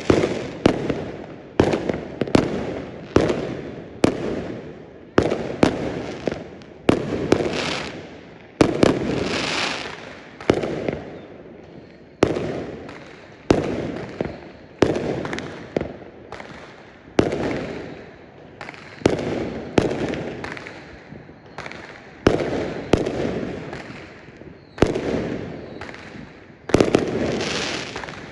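Fireworks going off in quick succession, a sharp bang about once a second, each followed by a fading rumble.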